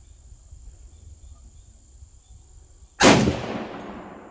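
A single rifle shot from a 6.5 Grendel with a 20-inch barrel firing a Wolf full-metal-jacket round, about three seconds in, with a long echo that trails off. A faint steady high insect trill runs underneath.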